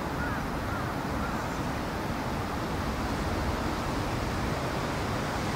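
Steady outdoor background noise with a low rumble, and three faint short chirps in the first second or so.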